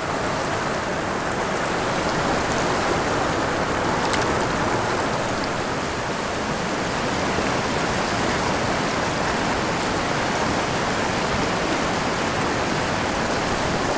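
Shallow river rushing and splashing over rocks in fast riffles close by: a steady rush of water.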